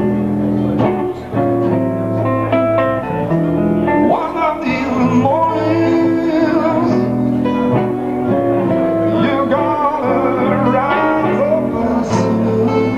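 Live acoustic band music: guitars and an acoustic bass playing, with a man singing.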